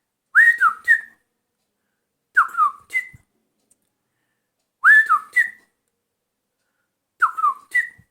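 A person whistling an imitation of a bird's call, a thrush-like bird known in Nepali as Baiguni. Four short phrases, each a quick upward swoop followed by two or three falling notes, repeated about every two and a half seconds.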